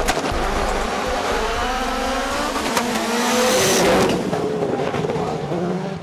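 Several rallycross supercars accelerating hard off the start line together, their engines rising in pitch. They are loudest as they pass about three and a half seconds in, then fall back a little.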